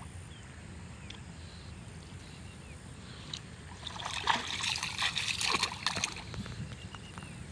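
Water splashing and trickling, busiest for about two seconds in the middle, over a steady low rumble.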